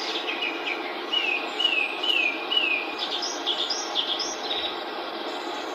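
Steady hiss of radio static from a PSB-11 spirit box scanning the radio band. Over it a bird sings a run of four short downward-sliding notes, then a quicker series of higher chirps.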